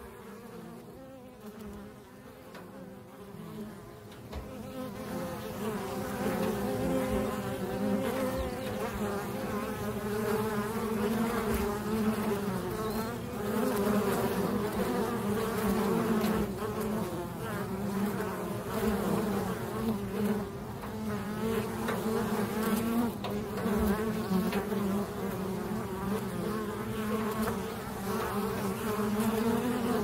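A large swarm of honey bees buzzing in flight, a dense steady drone that swells louder over the first several seconds. The bees have been disturbed off their hive.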